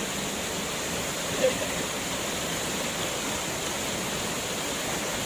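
Steady rushing of a waterfall, with one brief louder sound about one and a half seconds in.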